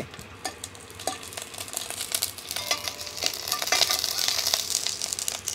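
Mustard seeds and dried red chillies sizzling and crackling in hot ghee in a steel kadai while a steel ladle stirs them: a tempering for rasam. The sizzle builds from about two seconds in, with many small pops.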